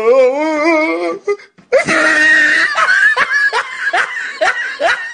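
A man laughing loudly: a wavering drawn-out cry, then a run of short ha-ha bursts about three a second.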